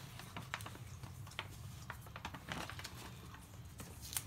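Faint paper rustling and crinkling as a folded paper slip is drawn from a paper gift bag and unfolded, with scattered small clicks and one sharper click near the end, over a low steady hum.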